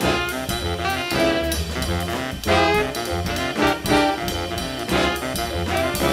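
A live jazz ensemble playing: saxophones and brass horns sound together over a walking low bass line and drum kit.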